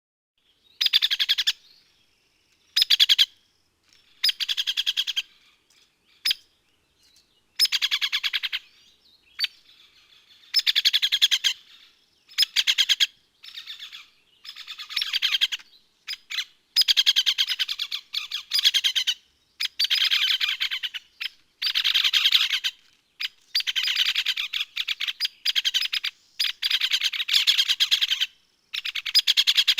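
Woodpecker rattling in repeated short bursts of very rapid strokes, each burst a second or so long, with brief pauses between them.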